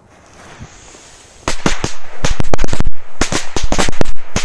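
A belt of small firecrackers going off: after a soft hiss, a rapid, irregular string of sharp loud bangs starts about a second and a half in, about five a second, and is still going at the end.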